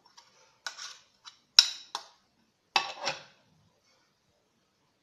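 A spoon clinking and scraping against a bowl as melted chocolate is scraped out: five or six short sharp knocks over about three seconds, the loudest near the middle.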